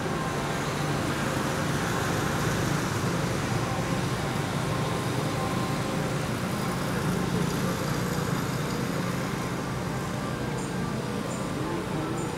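Steady background noise of distant road traffic, with a few faint high chirps near the end.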